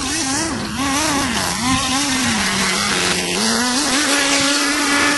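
Small two-stroke nitro engine of a 1:10 RC buggy (VTX18) running at high revs, its pitch swinging up and down as the throttle is worked, then rising and holding steadier near the end.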